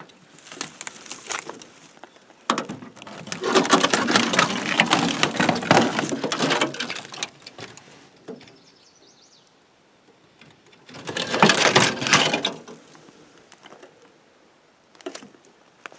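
Footsteps with dense crackling and rustling, in a long spell and then a short one about eleven seconds in. A bird chirps faintly in the quieter stretch between.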